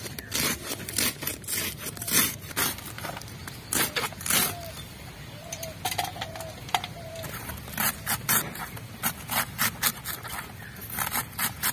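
Cabbage being shredded finely against an upright boti blade: a series of short, crisp slicing strokes through the leaves, irregularly spaced, roughly one or two a second.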